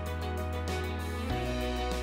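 Background music with a steady quick beat and sustained notes over a bass line that changes note about a second in.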